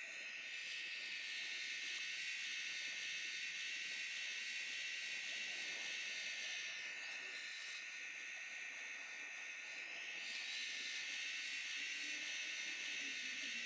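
High-pitched whine and hiss of a radio-controlled construction model's electric motor and hydraulic pump, running steadily. It gets louder about a second in, eases off around seven seconds, and picks up again near ten seconds.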